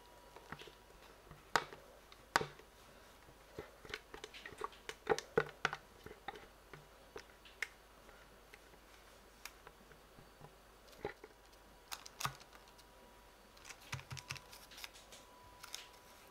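Spatula scraping and tapping against a glass measuring jug and a metal baking tin while thick filling is scraped out and spread: scattered light clicks and knocks, coming in small clusters.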